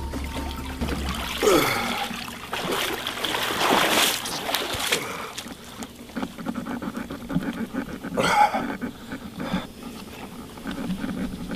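Water splashing and sloshing in irregular bursts as an alligator flops about in shallow water. The loudest bursts come about a second and a half in, around four seconds in, and again at about eight seconds.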